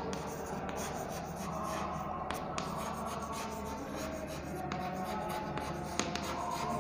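Chalk writing on a chalkboard: steady scratching and rubbing, broken by many quick sharp taps as the strokes of the letters are made.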